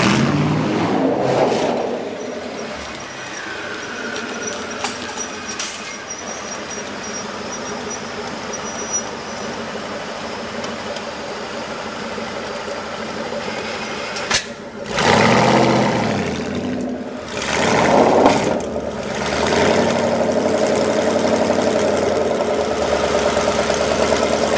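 Citroën GT Concept's engine running at a standstill. It is quieter for the first stretch, then is revved twice, about fifteen and eighteen seconds in, each time rising sharply. After that it settles into a steady, louder running note.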